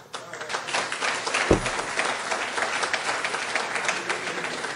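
Audience applauding, many hands clapping steadily, with a single low thump about a second and a half in.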